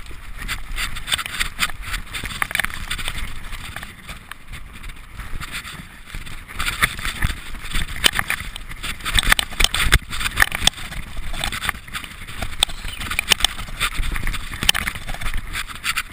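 Mountain bike riding fast down a dry dirt trail: tyres crunching over the dirt, with the bike's chain and frame rattling and knocking irregularly over bumps, and wind rumbling on the microphone.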